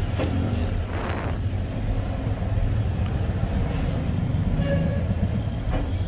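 Steady low vehicle rumble, with a few faint clicks of plastic and cable being handled as a trunk-release cable is clipped into its floor release lever.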